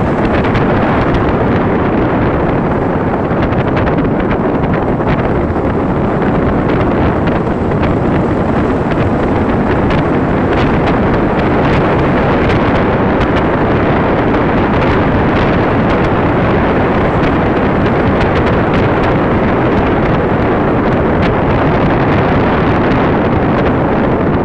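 Wind buffeting the microphone of a camera on a moving motorbike, a loud steady rumble, with the bike's engine and road noise blended underneath.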